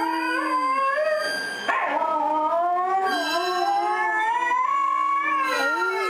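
Several dogs howling together from a television, long overlapping howls that glide up and down in pitch, with a short break and a fresh start about a second and a half in.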